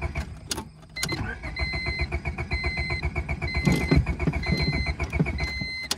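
Honda Civic engine being cranked by its starter, a rapid even chugging that pauses briefly about a second in and then resumes, without catching. The engine has been drained of oil and filled with spray foam, and the owner wonders whether the tank is out of gas. A high beeping sounds about once a second over it.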